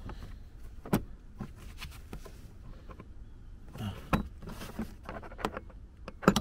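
Plastic interior kick panel being pulled and flexed by hand, its trim and clips creaking and scraping, with sharp clicks about a second in, a cluster of clicks around four seconds in and a loud click just before the end.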